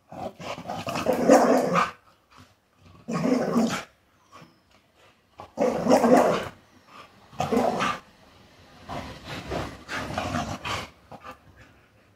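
A Rottweiler puppy 'talking': a run of about five drawn-out, bark-like vocal grumbles, the longest about two seconds at the start. These are demanding vocalizations; she wants to go outside.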